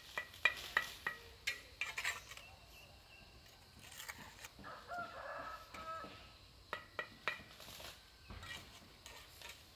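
Chickens clucking, mixed with a run of short, sharp knocks and clicks.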